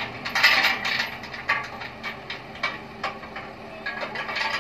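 Diesel engine idling steadily, under a series of irregular sharp knocks and clanks, the loudest about half a second in.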